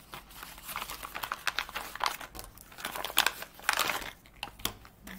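Packaging crinkling in irregular rustles and crackles as hands rummage inside a diamond-painting tool-kit pouch and draw items out.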